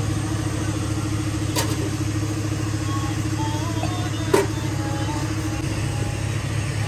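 A vehicle engine idling steadily with a fine even pulse, and two sharp clicks, one about a second and a half in and one about four seconds in.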